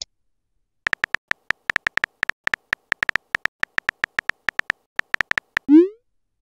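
Synthetic keyboard-tap clicks from a texting app, a quick, uneven run of short identical ticks as a message is typed. Near the end a short rising swoop, the app's message-send sound.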